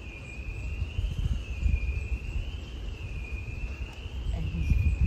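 A steady high insect trill that wavers gently up and down in pitch, over an uneven low rumble of wind on the microphone.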